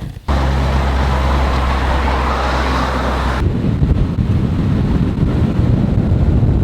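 Car sounds: an engine running with a steady low hum and a broad hiss, then, after about three seconds, an abrupt change to a rougher low rumble.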